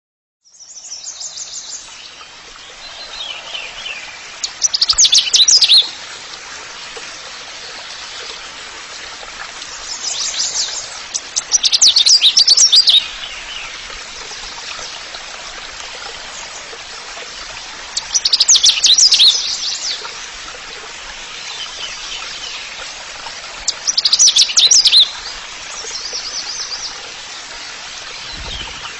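Songbirds chirping and trilling, with a loud, rapid, high-pitched burst of song about every six to seven seconds and softer calls in between, over a steady background of running water.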